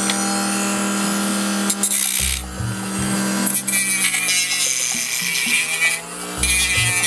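Dremel rotary tool on a flexible shaft, its sanding drum grinding away excess material from a plastic model car body in spells, over background music.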